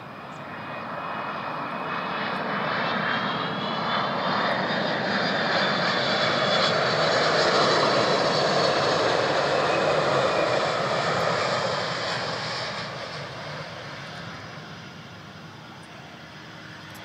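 Airbus A330 airliner's twin turbofan engines on landing approach. The roar builds to a peak about halfway through as the plane passes, with a high fan whine falling in pitch, then fades as the aircraft moves off down the runway.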